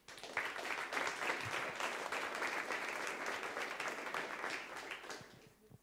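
Audience applauding, many hands clapping together; the applause starts just after the opening and dies away near the end.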